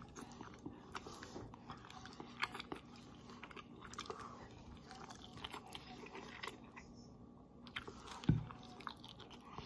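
Faint chewing and wet mouth noises of a person eating pesto fusilli straight off the plate with his mouth, with scattered small clicks and one dull thump a little after eight seconds in.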